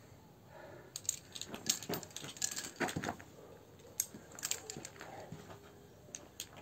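Metal climbing hardware, carabiners and quickdraws, clinking and clicking in an irregular flurry from about a second in, thinning out after about five seconds.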